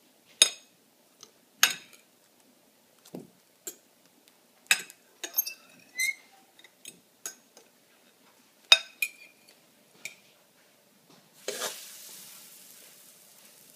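Metal fork clinking and tapping against a glass pie dish a dozen or so times while pressing bread into the egg mixture. Near the end, egg-soaked bread laid on a hot electric griddle starts to sizzle, the sizzle slowly fading.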